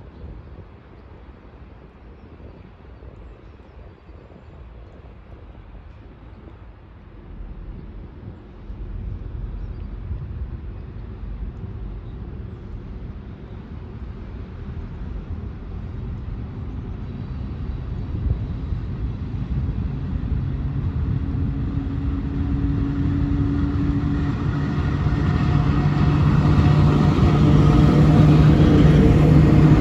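VL11 twin-section electric locomotive approaching with a freight train: a low rumble grows steadily louder, and a steady hum of several tones comes up over the last ten seconds as it draws near.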